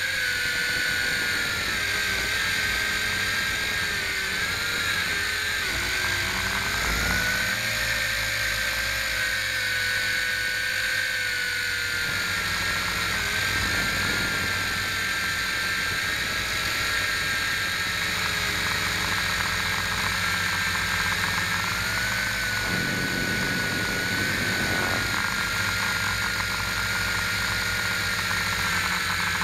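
Electric motors and propellers of a small multirotor camera drone, heard up close from its own onboard camera: a steady whine made of several tones that drift slightly in pitch as the motors adjust.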